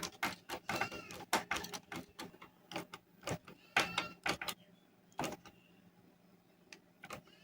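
Screwdriver work on a CRT television's plastic cabinet: a run of quick clicks and knocks as screws are driven in and tightened, thinning out to a few isolated clicks after about four and a half seconds.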